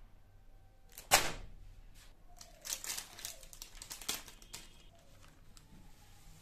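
Clear plastic wrapper crinkling and paper rustling as a sheet of drawing paper is slid out of its cellophane packet: one sharp crackle about a second in, then a run of shorter rustles.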